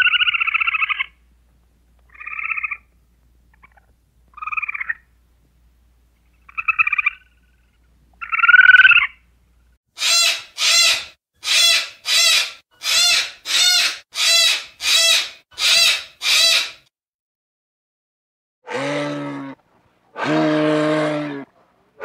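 Red squirrel calls: a series of short, high chirping calls about two seconds apart, the last one louder. Then a sulphur-crested cockatoo gives about ten harsh screeches in a steady rhythm, about one and a half a second. Near the end a bull moose gives two low, drawn-out grunting calls.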